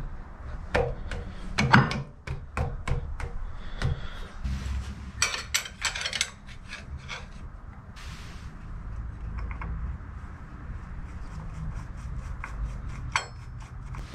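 Clicks, knocks and small scrapes of metal parts being handled as a toothed rubber drive belt is worked onto the pulleys of a Bridgeport milling machine's head. There is a quick rattle of clicks about five seconds in, and the second half is quieter, with a few more clicks near the end.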